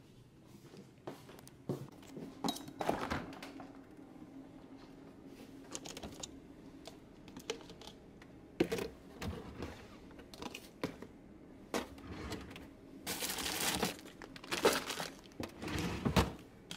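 Handling food in a refrigerator: scattered knocks and clicks of containers being moved, then louder crinkling of a plastic bag of baby carrots in the last few seconds.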